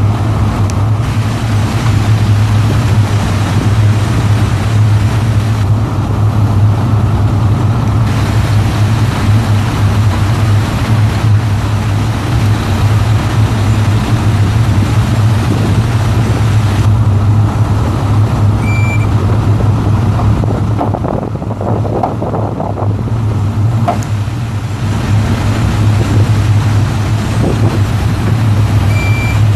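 Cummins M11 six-cylinder turbo diesel of a dump truck running steadily with a deep drone while the dump bed's hydraulic hoist is worked. The level dips briefly about two-thirds through, and a short high beep sounds twice late on.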